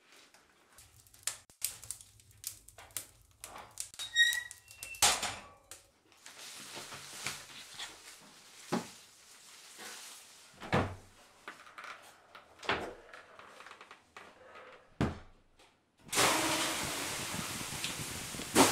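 Crackling and small clicks from burning tinder as a sauna stove is lit, then a single thunk. After that come slaps of a leafy birch sauna whisk, one roughly every two seconds. Near the end a loud steady hiss sets in: water steaming on the hot sauna stones.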